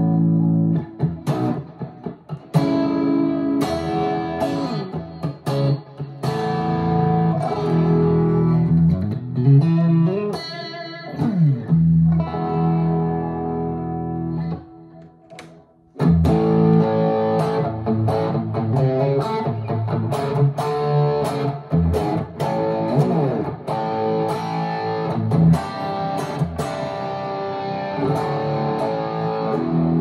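2023 PRS Special Semi-Hollow electric guitar played through an amp: picked chords and single-note lines, with several notes sliding in pitch about a third of the way in. The sound dies away briefly about halfway, then the playing picks up again.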